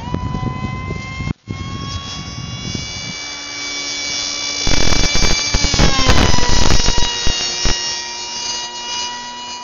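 Electric outrunner motor spinning double wooden propellers on an RC flying wing, giving a high whine with many overtones. The pitch rises right at the start and creeps up. About five to seven seconds in there is a loud rush of noise and the pitch drops, after which the whine holds steady.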